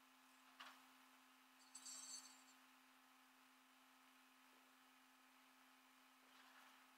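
Near silence with a steady low hum. A faint click comes just over half a second in, and a brief, louder noise about two seconds in.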